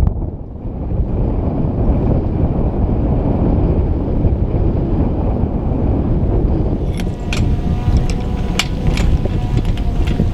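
Wind buffeting the microphone, a loud steady low rumble. About two-thirds of the way in, a run of sharp clicks and cracks joins it.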